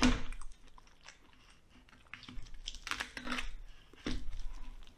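Large kitchen knife cutting and prying into a roasted lamb head on a plastic cutting board: crunching through crisp skin and bone in short bursts, with a sharp knock at the start and more crunching in the middle and near the end.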